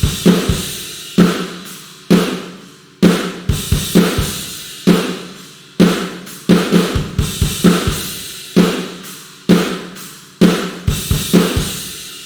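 Sampled acoustic rock drum kit from the GetGood Drums 'One Kit Wonder Aggressive Rock' Kontakt library playing a groove: clusters of sharp hits about once a second over ringing cymbals. It stops near the end, leaving the cymbals to ring out.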